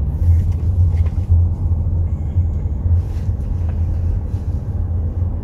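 Steady low rumble of a car's engine and tyres, heard from inside the cabin while the car moves slowly.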